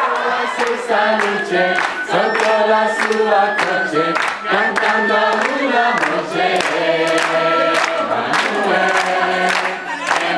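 A group of people singing a song together in chorus, with hands clapping along in a steady rhythm.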